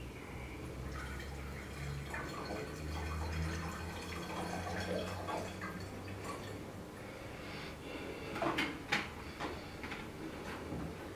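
Liquid solvent pouring from a plastic bottle through a plastic funnel into a glass flask, with a steady trickle and splash. About eight and a half seconds in come a few sharp knocks as the bottles are handled on the table.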